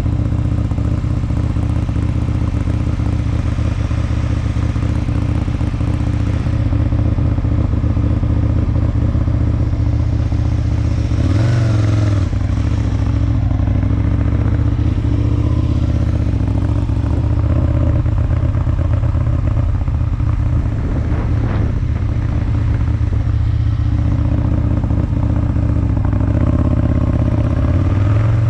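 Aprilia Tuono 1000's V-twin engine running steadily under way, with a brief rise in revs about eleven seconds in and again near the end.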